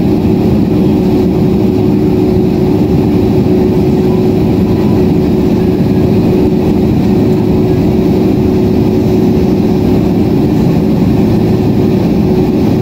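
Steady cabin noise inside a Boeing 767-400ER in flight: the hum of its twin jet engines and the rush of air along the fuselage, a low even roar with one held tone in it.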